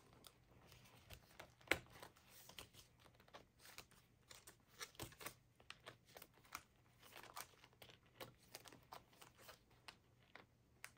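Faint rustling and irregular small clicks of plastic cash envelopes being handled and flipped through in a zippered binder wallet, with one sharper click just under two seconds in.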